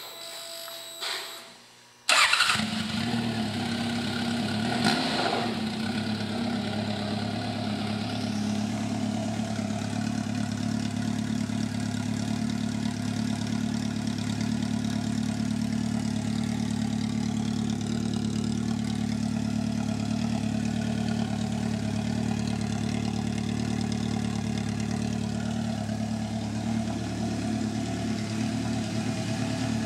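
2013 Honda CB1100's air-cooled inline-four engine starting up about two seconds in, then idling steadily through a homemade slash-cut exhaust tip.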